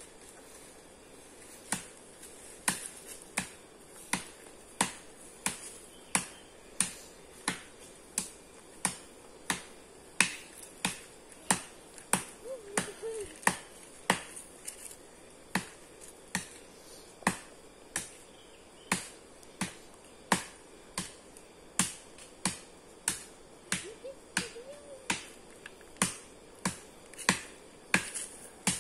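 Sharp knocks repeated at an even pace, about three every two seconds, starting about two seconds in, over a steady high hiss.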